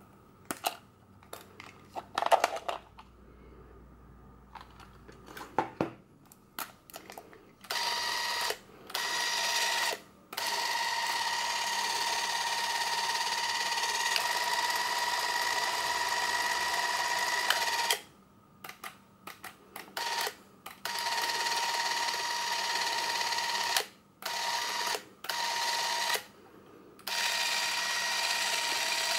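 Braun Nizo 561 Macro Super 8 camera's electric drive motor running with a steady whine. It is switched on and off repeatedly: a few short runs, one long run of about seven seconds in the middle, then several more short runs. Before the motor first starts, there are a few seconds of small clicks from the camera's controls being handled.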